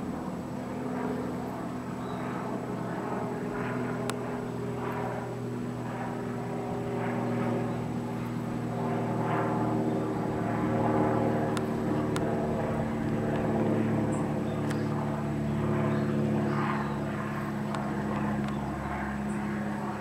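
A steady engine drone with a low hum made of several pitches that drift slightly and swell and fade over several seconds. A few faint ticks sound on top.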